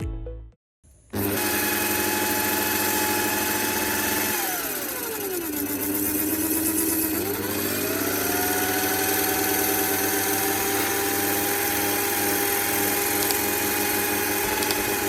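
Small electric motor of a homemade knife sharpener switching on about a second in and running with a steady whine. Around four seconds in its pitch falls steeply, then climbs back up and holds steady again.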